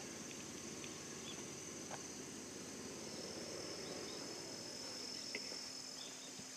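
Insects chirring steadily at a high pitch from the surrounding trees, over a faint outdoor hush.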